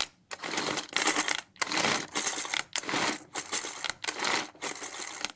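Pull-cord hand chopper (Pigeon Handy Mini Chopper) being pulled about eight times in quick succession. Each pull spins the blades with a short rattle as onion pieces are chopped inside the plastic bowl.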